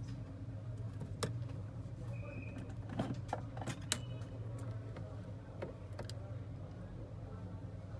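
Scattered light clicks and taps of handling, a few close together about three to four seconds in, over a steady low hum.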